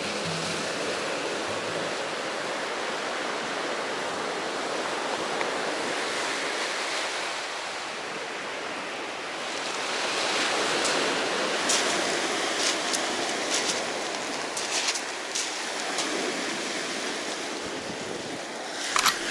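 Waves breaking and washing up a pebble beach, a steady rushing hiss with scattered sharp clicks in the second half.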